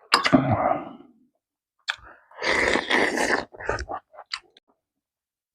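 A person eating pork kimchi stew close to the microphone: chewing and mouth noises in a few separate bursts, with short clicks near the end.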